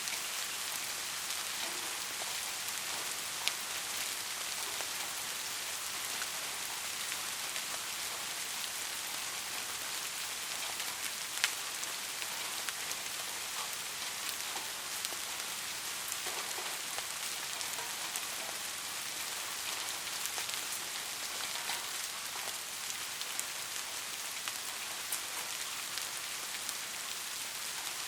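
Steady rain falling on a roof: an even hiss with scattered sharp drop ticks, two louder ones about 3.5 and 11.5 seconds in.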